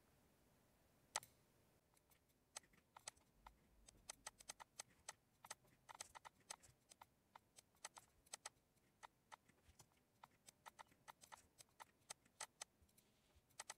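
Faint computer mouse clicks, many in an irregular run, sometimes two or three a second, with a single louder click about a second in.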